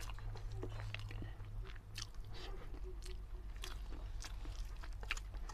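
Mouth sounds of someone chewing a mouthful of rice and black chickpea curry: irregular wet smacks and clicks, over a steady low hum.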